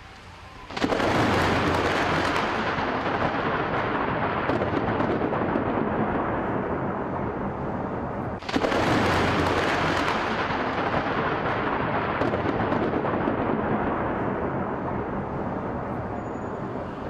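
Two close thunderclaps from nearby lightning strikes. Each starts with a sudden crack and rolls on for several seconds: the first about a second in, the second about halfway through.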